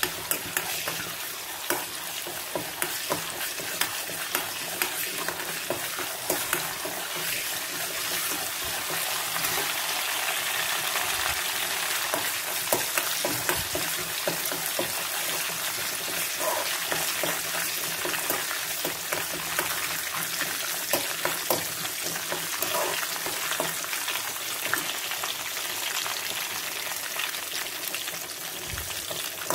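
Mustard seeds and curry leaves sizzling in hot coconut oil for a tempering, with a steady frying hiss and scattered small crackles as the seeds begin to pop.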